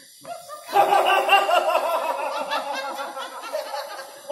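Several people laughing loudly together in quick repeated bursts, starting suddenly about a second in.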